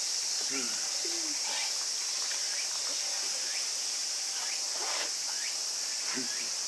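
A steady, high-pitched insect chorus drones without a break, with faint voices of other people murmuring underneath.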